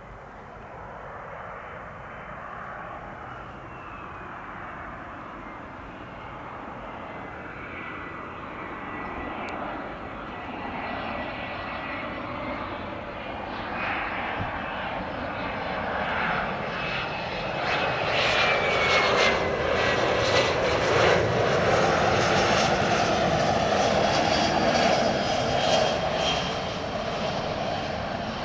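Cessna Citation C680 business jet's twin turbofan engines on a landing approach, growing steadily louder as it nears, with a high whine that drops in pitch as it passes; loudest in the last third.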